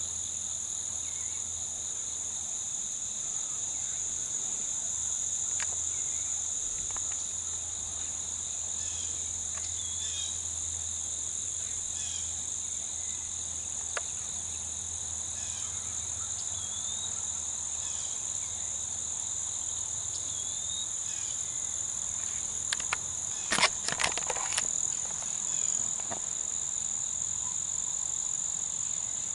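A steady, high-pitched insect chorus of crickets and similar insects droning without a break, with a few short rising chirps now and then. About 23 seconds in, a brief cluster of sharp clicks and knocks is the loudest sound.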